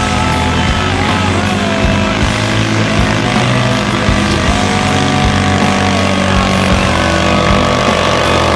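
Garden tractor engine running hard and steady under load as it drags a weighted pulling sled along a dirt track, growing nearer.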